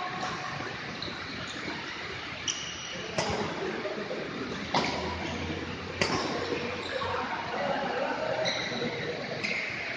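Badminton rally: racquets striking the shuttlecock in sharp smacks, about five in all, a second or more apart, with short high squeaks of shoes on the court floor.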